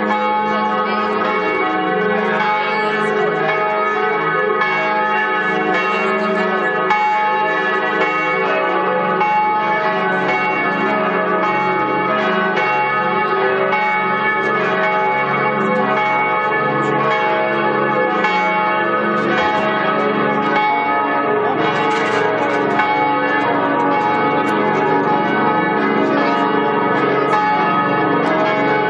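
Several large church bells ringing together in a full, continuous peal, their overlapping tones sounding without a break.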